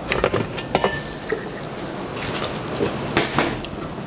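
Stainless steel mixing bowl and metal spoon clinking and knocking as the bowl of beaten divinity is handled and stirred, with several sharp knocks.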